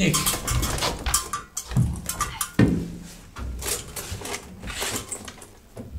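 Scattered knocks, clicks and thuds of footsteps and movement on a wooden stage floor as an actor goes down on one knee, irregular rather than rhythmic.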